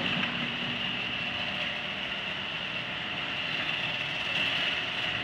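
Genie screw-drive garage door opener running, its motor turning the threaded rail to move the door; a steady, even mechanical drone with a high whine.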